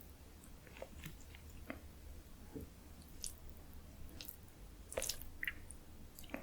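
Close-miked chewing and biting of food, with scattered small wet clicks and crunches. The sharpest click comes about five seconds in.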